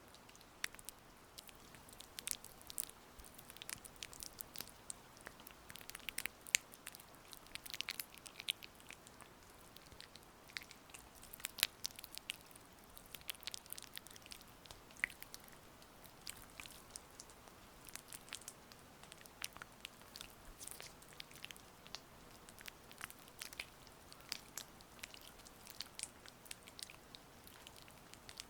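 Oiled hands massaging close to the microphone: soft, irregular wet, sticky clicks and crackles as the slick skin presses, slides and pulls apart.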